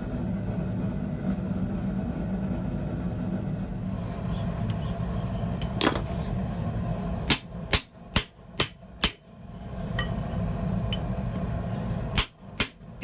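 Hand hammer blows on a hammer eye chisel being driven into hot steel: a run of five sharp strikes at about two a second, with more strikes near the end. Between them is a steady low hum.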